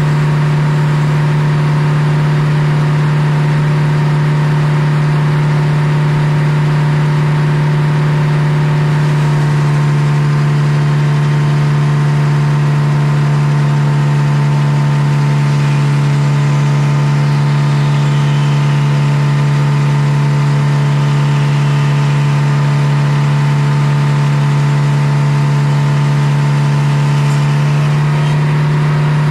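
Circular sawmill running steadily, its engine and big spinning blade giving a loud, even drone while the blade saws a board off a poplar log.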